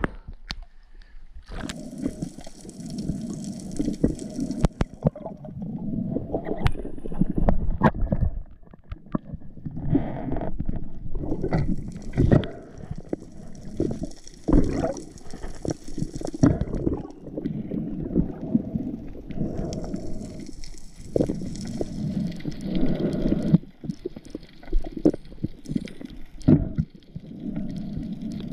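Sea water sloshing and gurgling around a waterproof camera at the surface, with many scattered knocks and clicks. Stretches of high hiss come and go a few times.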